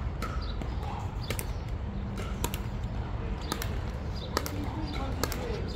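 Sharp pops of hard plastic pickleballs being hit by paddles and bouncing on the hard court, scattered roughly a second apart, over a steady low rumble.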